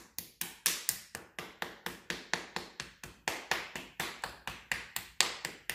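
Qigong self-tapping: one hand patting the other hand and forearm in quick, even slaps, about three a second.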